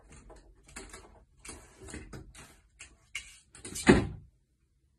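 A cat's claws scrabbling and scraping against a wooden door as it clings and climbs, a quick irregular run of scratchy scuffs. About four seconds in comes a louder thump as it drops to the floor.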